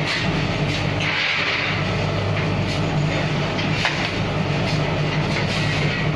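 Automatic vertical pouch-packing machine running: a steady motor hum with irregular sharp mechanical clicks, and a brief hiss about a second in.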